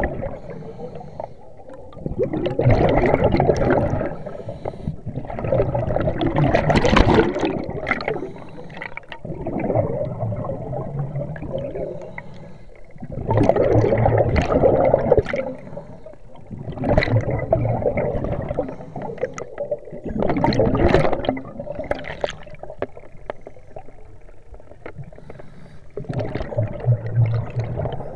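Sea waves sloshing and gurgling against an inflatable boat's hull tube and a camera at the waterline, swelling into a splash every three to four seconds as each wave washes past.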